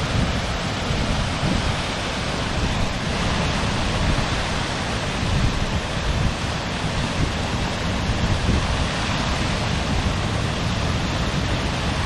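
Steady rushing of a waterfall, with wind buffeting the microphone in low rumbling gusts.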